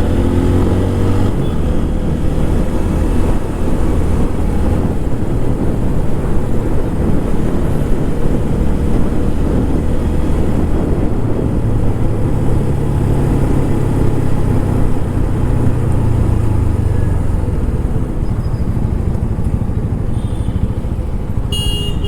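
TVS Apache RTR 160 4V's single-cylinder engine with its stock exhaust, running under way with small changes in revs, under a heavy low wind rumble. A brief high-pitched sound comes near the end.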